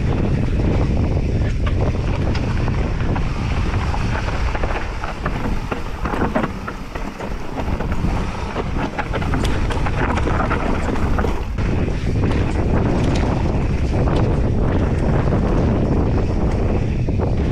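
Wind buffeting the microphone on a fast mountain-bike descent of a dirt trail, with tyres rumbling and frequent rattling clicks from the bike; it eases briefly midway, then picks up again.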